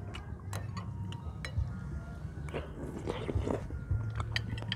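People eating: chewing, with light clicks and clinks of metal spoons against bowls and plates scattered through, over a low steady hum.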